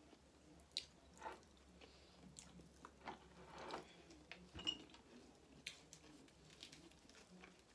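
Faint eating sounds: soft chewing, with a few scattered clicks and rustles from hands tearing and folding flatbread.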